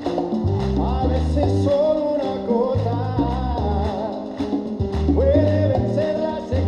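Latin-style song with a singer over a pulsing bass line and a steady beat.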